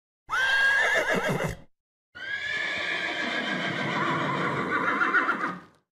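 A horse whinnying twice: a short call with a rising, then wavering, pitch, and after a brief pause a longer call of about three and a half seconds.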